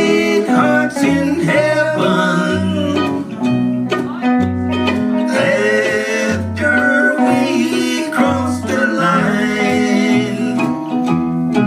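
A live country string trio playing: archtop guitar and mandolin over a plucked upright bass that moves at about two notes a second.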